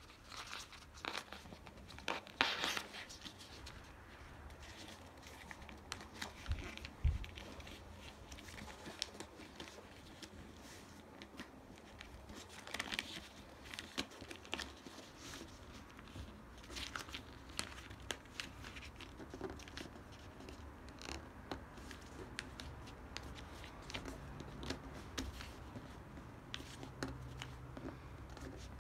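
A sheet of paper being folded by hand into a paper airplane, rustling and crinkling in short bursts as the folds are pressed flat on the table. There is one soft thump about seven seconds in.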